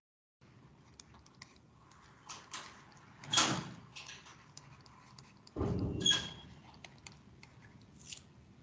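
Scattered light clicks and knocks, with a louder sharp knock about three and a half seconds in and a brief dull thud a little before six seconds in.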